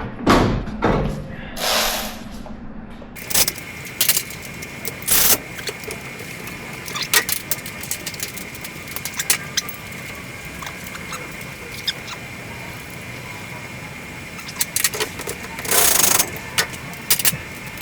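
Scattered metallic clicks and taps of hand-tool work on the truck, over a steady hiss with a thin high whine that sets in about three seconds in.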